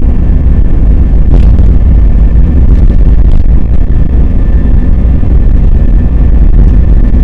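Airbus A320 jet engines and rolling airframe heard from inside the cabin during the takeoff roll: a loud, steady, deep rumble with a thin steady engine whine above it and a few faint clicks or rattles.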